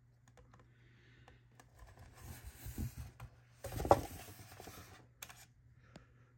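Styrofoam packaging shell and tissue wrap rustling and scraping as they are handled and the die-cast model car is lifted out of its foam bed. The noise is loudest in a short scrape about four seconds in, followed by a couple of light clicks.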